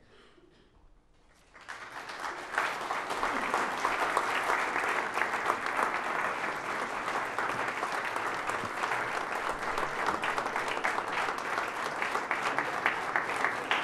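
Audience applause breaks out about a second and a half in, swelling within a second into steady clapping at the end of a performance.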